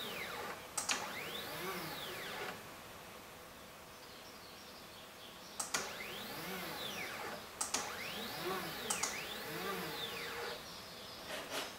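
CNC 3018 router's Z-axis stepper motor jogging the spindle carriage up and down in short moves, each a whine that rises and then falls in pitch as the motor speeds up and slows down. Two runs of moves with a quieter gap of about three seconds between them, and sharp clicks at the start of several moves.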